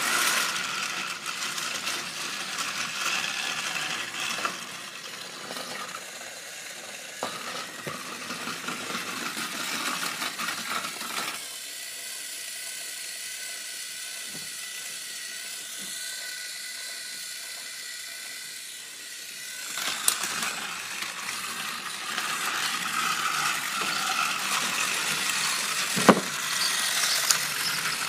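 Battery-powered Thomas & Friends toy trains running on plastic track: a steady whirring, rattling gear-motor sound. It goes quieter and thinner for several seconds in the middle, and there is a sharp click near the end.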